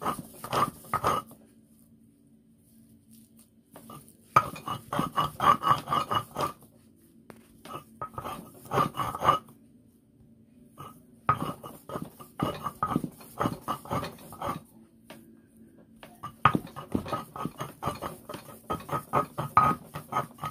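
Stone mano worked back and forth over a stone metate, grinding boiled plantains into dough. It makes quick rhythmic strokes in bursts of one to four seconds, with short pauses between.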